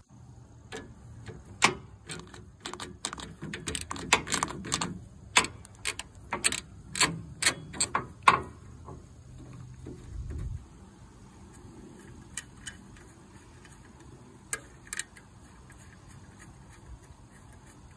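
Hand socket wrench and extension working the engine mounting bolts on a riding mower: irregular metal clicks and clinks, coming thick and fast for the first half, then only now and then.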